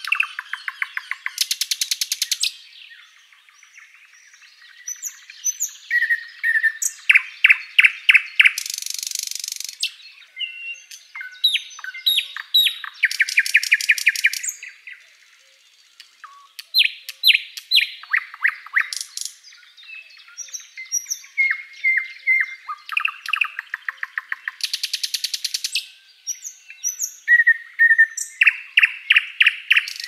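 Thrush nightingale singing loud phrases of fast repeated notes, whistles and harsh rattles, with short pauses between phrases.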